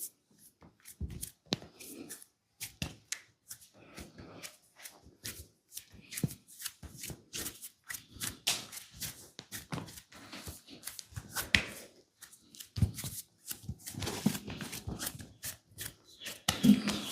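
A barber's hands massaging a client, making an irregular run of quick pats and slaps on skin. The pats come more densely and louder near the end.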